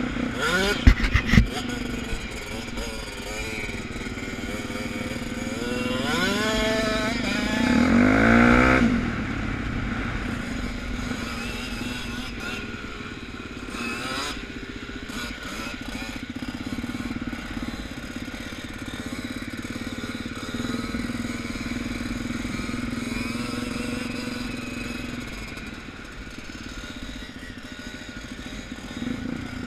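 Suzuki DR 350 dirt bike's single-cylinder four-stroke engine running on the move, with a few sharp knocks about a second in. The engine revs up, rising in pitch for a few seconds around the middle, then runs at a steady pitch.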